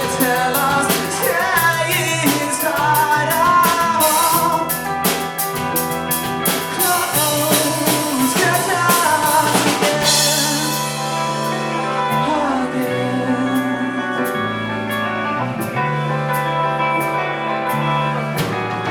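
Live band playing with drum kit, bass and guitar and a wavering lead line over the top. About halfway through the cymbals drop out and the drums thin, leaving the bass line and lighter beats.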